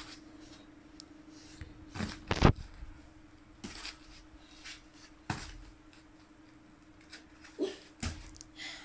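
Scattered thumps and knocks of a child's hands, feet and body landing on a foam play mat during gymnastics moves, about six in all, the loudest about two and a half seconds in, over a steady low hum.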